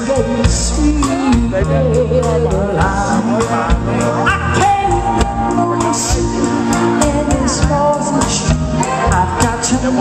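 Live band performing a song: singing over drums and a bass line.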